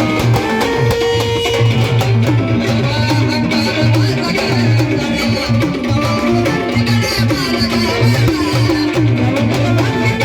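Music with a steady percussion rhythm, with short swooping pitch glides repeating about every second.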